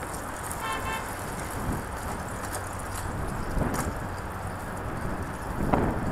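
Steady wind rush on the microphone and road noise from a bicycle riding along, with a short pitched tone about three quarters of a second in and a few light knocks later from bumps in the road.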